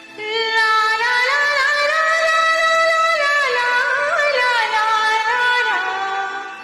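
Music: the opening of a Hindi film song track, a single melody line of held notes that slide and waver in pitch over soft accompaniment. It comes in suddenly just after the start and fades out near the end.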